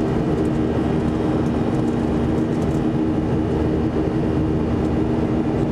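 Steady in-cabin drone of a Boeing 737-400's CFM56-3 turbofan engines in flight, with a constant hum of several tones over a rushing noise.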